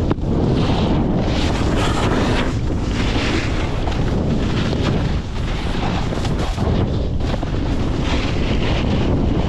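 Wind buffeting the action camera's microphone at riding speed, a loud steady rumble, with the hiss and scrape of the snowboard sliding and carving on packed snow swelling and fading with each turn.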